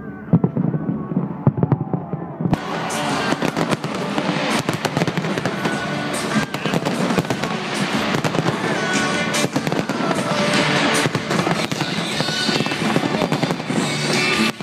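Fireworks going off: a few low booms at first, then from about two and a half seconds in a dense, continuous barrage of bangs and crackles, with music playing along.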